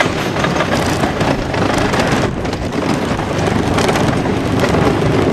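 Wooden junior roller coaster train clattering along its track at speed, with wind buffeting the microphone.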